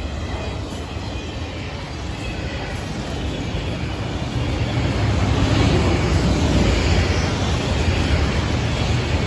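Long freight train of autorack cars rolling past: a steady rumble and rattle of steel wheels on the rails, growing louder about halfway through.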